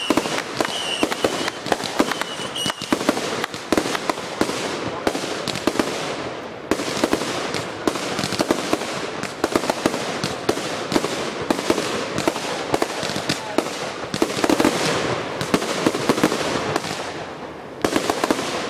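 Consumer fireworks going off in a rapid, continuous barrage, with overlapping bangs of aerial bursts and crackling. Whistles sound in the first three seconds, and the barrage dips briefly twice before a last flurry near the end.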